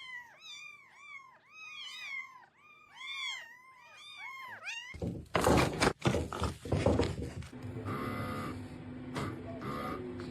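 Kittens mewing: a quick run of short, high mews that rise and fall, about three a second. About five seconds in, a sudden louder stretch of noise takes over, then a steady hum with several held tones.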